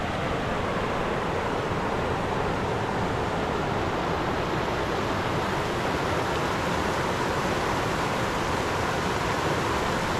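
Muddy stormwater from a flash flood rushing steadily through a sediment trap into a flood-control pond, a continuous rushing noise.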